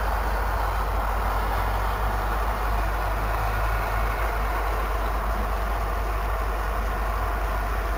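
Steady, even hiss with a low hum underneath from an outdoor street webcam's microphone, with no distinct events.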